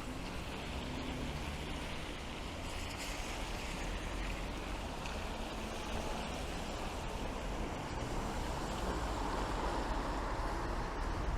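Steady rain on a city street, a continuous hiss of falling and running water with a low rumble of traffic beneath, swelling a little louder near the end.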